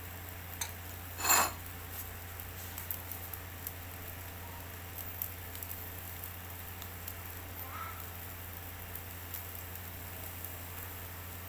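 Beef satay grilling over charcoal: faint sizzling with scattered small crackles and ticks, over a steady low hum. One loud, sharp noise comes about a second in.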